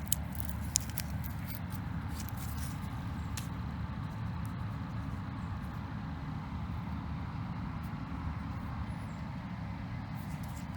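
Harvest machinery engine running at a steady pace, a low even rumble, with a few light clicks in the first second.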